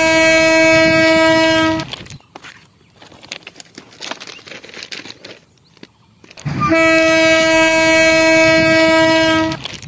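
Train horn sounding a long, steady blast that stops about two seconds in, then a second long blast of the same pitch from about six and a half seconds in until just before the end.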